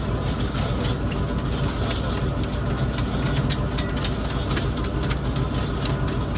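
A heavy engine running steadily with a deep hum, with light clicking and rattling over it.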